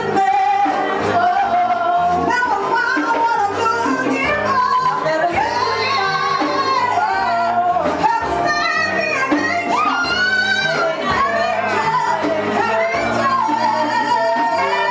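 A woman singing into a microphone with a live band of saxophone, keyboard and electric bass guitar. Her voice slides and bends between notes over a steady bass line.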